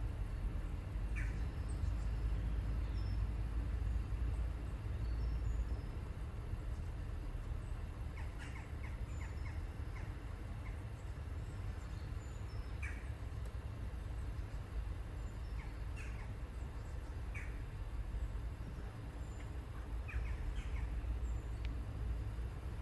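Small birds chirping now and then, short high calls scattered through, over a steady low rumble.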